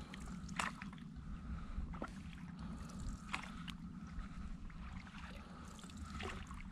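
Stand-up paddleboard paddle strokes on calm water: the blade dips in and pulls through, with a short splash and trickle every second or two. A low steady rumble runs underneath.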